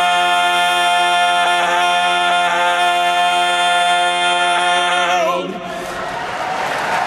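Barbershop quartet of four men's voices singing a cappella, holding a long, steady final chord that they cut off together about five seconds in. Audience applause follows and builds to the end.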